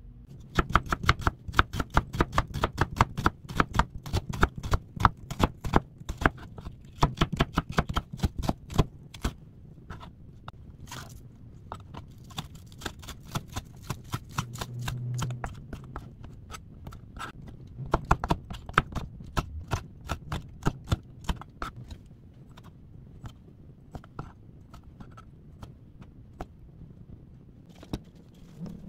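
Kitchen knife chopping on a plastic cutting board: quick, even strokes, several a second, in runs with pauses between them, cutting onion and green onion.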